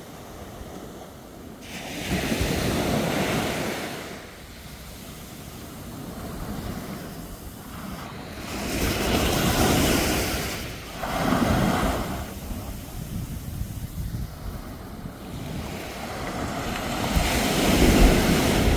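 Sea waves breaking on a sandy beach and washing up the shore, swelling about four times as successive waves come in.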